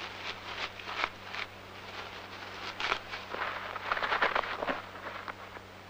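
Dry grass rustling and crackling as a European hamster drags it into its burrow, in irregular bouts: one in the first second and a half, a louder one from about the middle.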